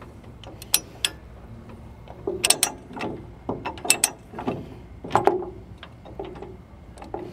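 Durabilt steel ratcheting chain binder being loosened with its removable handle: the pawl clicking over the gear as the handle is swung and the barrel turns. Irregular sharp metal clicks and clacks, several in quick succession around the middle.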